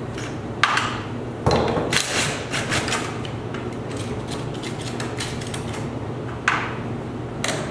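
Cordless DeWalt drill with a socket running on the torsion spring center bracket bolts, backing them out, with a few sharp metal knocks.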